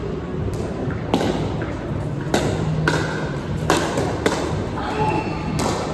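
Pickleball rally: a series of sharp pops from paddles striking the plastic ball and the ball bouncing on the court, about seven in all at irregular spacing, each with a brief echo of a large hall.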